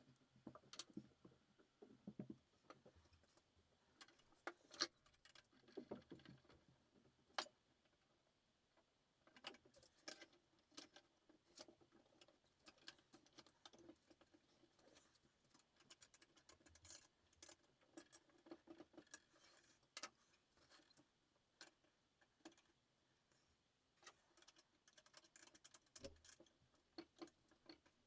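Near silence with faint, irregular clicks and light taps, like small objects being handled.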